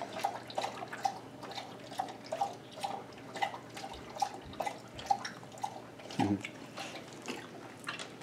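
A dog lapping water from a steel bowl, about two laps a second. A short vocal sound comes about six seconds in.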